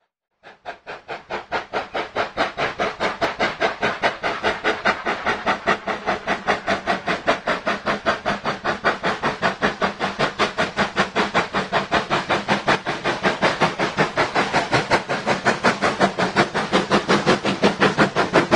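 Steam locomotive exhaust chuffing at a steady pace, about five beats a second, coming in about half a second in and quickly growing louder.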